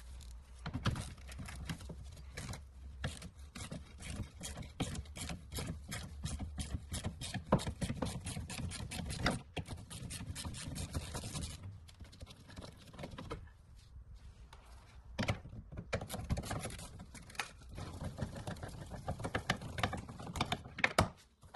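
Hand ratchet on a long socket extension clicking rapidly as it unscrews a front bumper mounting bolt inside the wheel arch. The clicking runs in two spells, with a pause of a few seconds in the middle.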